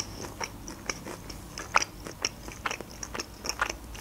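Close-miked mouth sounds of a person chewing a bitten breaded chicken nugget: an irregular run of short crunches and clicks, several a second.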